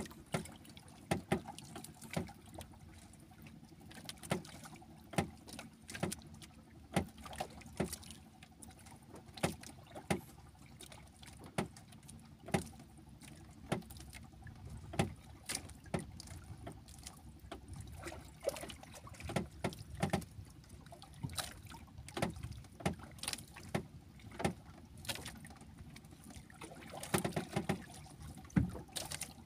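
Water lapping against a small wooden outrigger canoe, with frequent irregular knocks and taps from the boat, about one a second.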